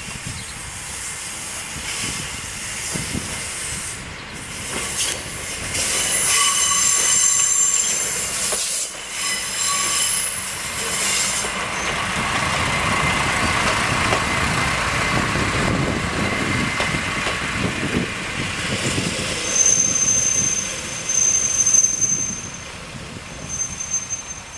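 Tango Railway KTR700-series diesel railcar moving slowly through station pointwork, its engine and wheels running loudest as it passes. High-pitched wheel squeals come twice, the second as it slows to a stop near the end.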